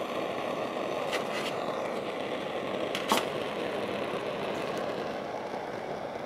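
Homemade copper coil alcohol jet stove burning, its jet flame giving a steady roar, with a few light clicks and one sharper click about three seconds in. The roar begins to ease near the end as the stove runs low on fuel.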